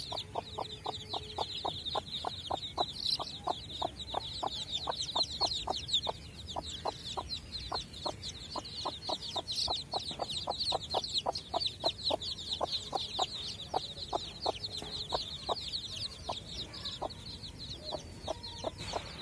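A crowd of native chicken chicks peeping without pause, many high, short overlapping cheeps, over a steady run of low clucks at about three a second from the mother hen.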